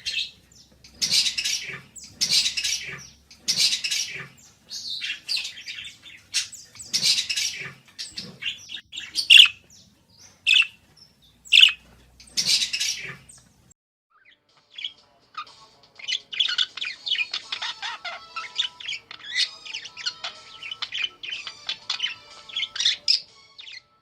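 Budgerigar calling: loud, sharp chirps and squawks spaced out over the first half, then after a short pause a quicker, continuous warbling chatter of many small notes.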